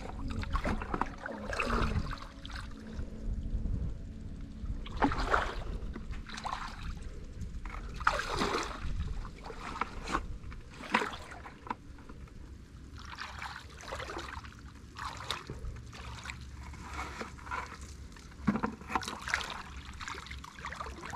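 Shallow muddy water sloshing and splashing around a person's legs as she wades knee-deep, with irregular louder swishes every second or two.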